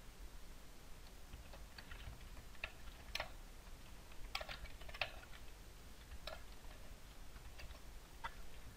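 Faint typing on a computer keyboard: scattered, irregular keystrokes as a line of code is entered.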